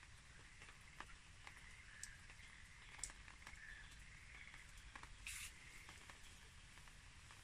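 Near silence: faint clicks and a soft rustle of soil and roots as a clump of Japanese red pine seedlings is pressed by hand into a shallow bonsai pot, with a slightly louder rustle about five seconds in.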